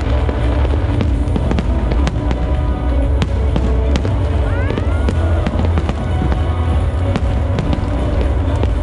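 Aerial fireworks bursting and crackling in quick succession, with music playing along.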